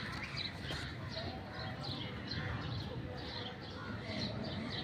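Small birds chirping, many short repeated calls overlapping, over a steady busy background hum.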